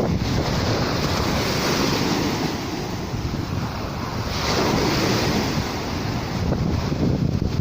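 Sea waves washing in, one wave swelling and breaking about halfway through, with wind buffeting the microphone.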